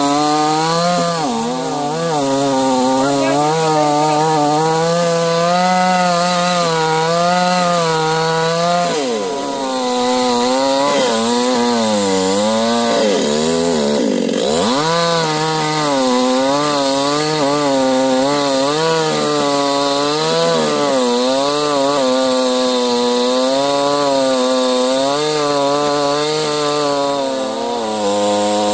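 Large two-stroke chainsaw running at high revs while cutting into a tree trunk. Its pitch wavers steadily as the chain loads in the wood, and twice, about nine and fourteen seconds in, it drops sharply and climbs back up.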